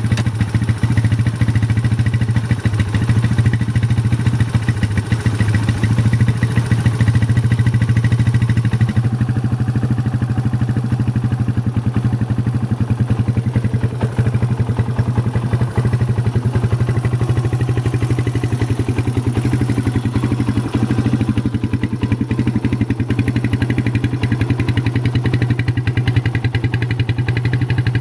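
Suzuki LT230S quad's single-cylinder four-stroke engine running steadily at idle.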